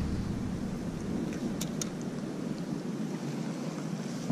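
Steady wind noise on the microphone, with a few sharp clicks about a second and a half in.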